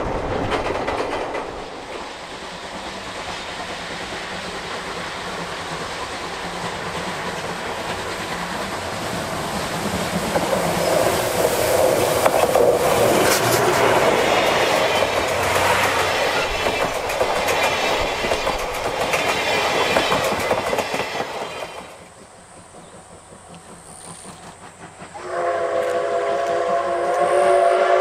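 Steam-hauled passenger coaches of C57 180 rolling by with wheels clattering over the rail joints, growing louder as the train passes close. Near the end the locomotive's steam whistle sounds a long, steady blast of several tones.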